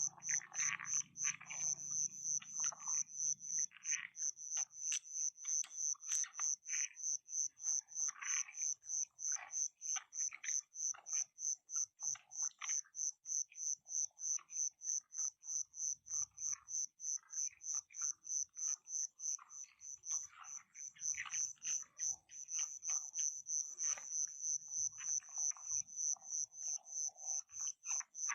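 Frogs calling in scattered short croaks over a high, steady pulsing chirp at about three to four pulses a second.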